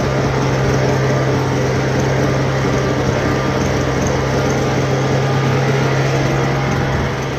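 Small petrol engine running steadily at one constant speed, with no revving or change in pitch.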